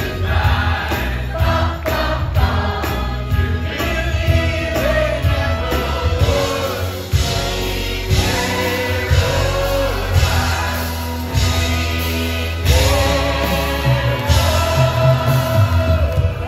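Broadway musical cast singing together with the live theatre band, heard from the audience: a full chorus of voices over heavy bass and a steady beat, with long held sung notes.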